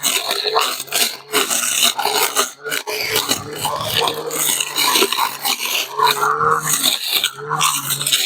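Cordless 21-volt lithium-ion brush cutter running and cutting grass: a motor whir mixed with the swish of the cutting line through grass, with short dips in the sound every second or two.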